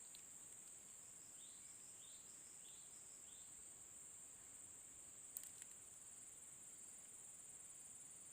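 Faint, steady high-pitched insect drone, with four short rising chirps a couple of seconds in and a single sharp click a little past halfway.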